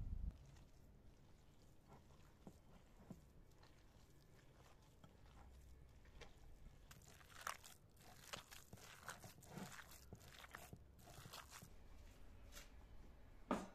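Hands kneading raw minced lamb in a glass bowl: faint wet squishing and crackling, busiest from about halfway through, with a single sharp knock near the end.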